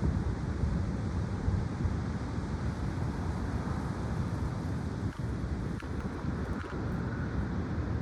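Strong, gusty wind buffeting the microphone: a dense, unbroken low rushing noise with no voice in it.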